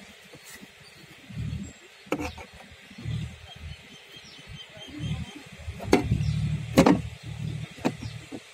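Knife chopping through a mural fish (needlefish) on a steel plate: a few sharp knocks as the blade goes through and strikes the plate, the loudest two about six and seven seconds in, over a low uneven rumble.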